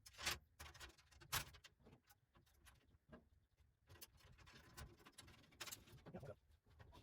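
Scattered light clicks and taps of the handle, gasket and fasteners being fitted to a pellet smoker's lid, the two loudest about a quarter-second and about a second and a half in.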